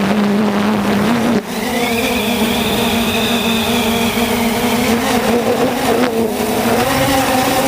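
Camera drone's motors and propellers running with a steady whine that drifts slightly in pitch. A higher whistling layer joins about a second and a half in and fades near the middle.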